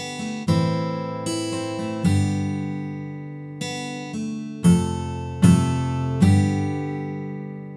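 Recorded guitar track playing chords, struck about once a second and each left to ring out, the loudest in the middle. It is heard through a tonal-balance EQ that boosts the highs for clarity and the mids a little for body.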